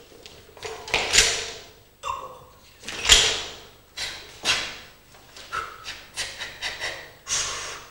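A series of knocks and clanks, about one a second, each dying away over about half a second, a few with a short ringing tone.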